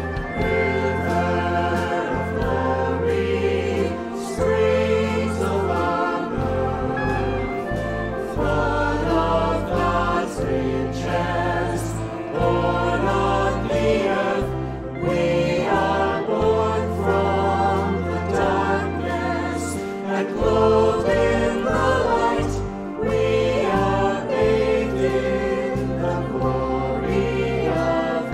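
Choir singing a hymn with instrumental accompaniment, over held low bass notes that change every few seconds.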